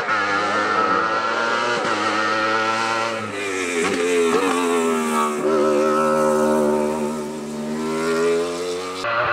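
Wolf Thunder E2SS sports prototype's 1000 cc motorcycle-derived engine running at high revs close by. Its pitch falls with a few quick blips about three to four seconds in, then climbs steadily as the car accelerates out of the bend.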